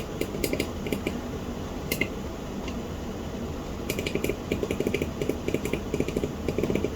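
Small plastic buttons or keys clicking as they are pressed: a few scattered clicks at first, then a quick run of several clicks a second from about four seconds in.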